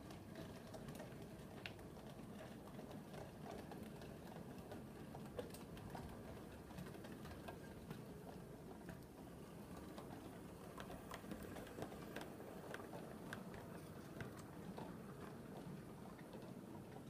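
7mm-scale model trains running on the layout, a locomotive and a rake of freight wagons: a faint, steady rumble of wheels on track with scattered light clicks.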